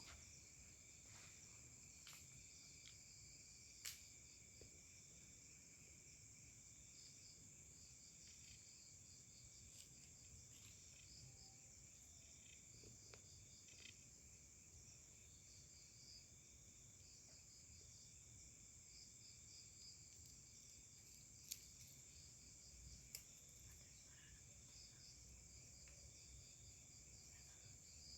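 Faint chorus of forest insects such as crickets: several steady high-pitched trills overlap with repeated pulsed chirps. A few brief sharp clicks stand out, one about four seconds in and two more near the three-quarter mark.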